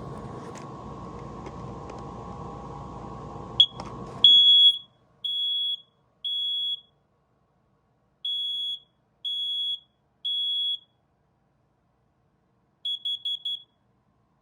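Battery-powered 9-volt smoke alarm sounding its test after the test button is pressed, confirming that it works after the battery change and reset. After a click comes a short blip, then two rounds of three high-pitched half-second beeps with a pause between. Four quick chirps follow near the end.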